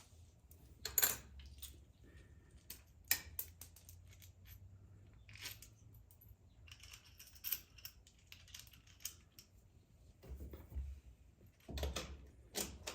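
Scattered metallic clicks, taps and clinks of bolts, nuts and hand tools being handled while the ride plate's side bars are fitted, single knocks a second or two apart and a quicker cluster near the end.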